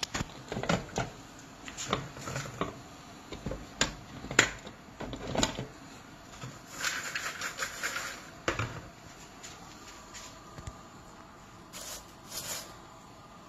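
A hand rummaging in freshly popped popcorn in a glass bowl: irregular rustles, crackles and small knocks, densest in the first eight seconds, with a sharp click the loudest moment and only a few soft rustles near the end.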